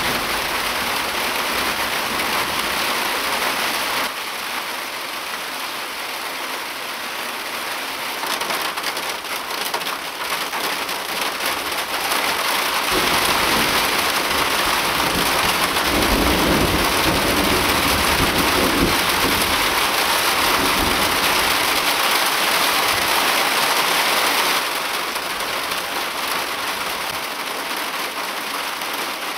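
Heavy thunderstorm rain falling steadily, with a long low rumble of thunder building in the middle and fading out.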